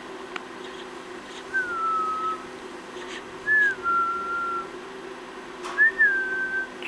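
A person whistling three times, each whistle a quick slide in pitch that settles into a held note.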